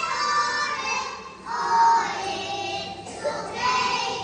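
A group of young children singing a song together, in held sung phrases with brief breaks between them.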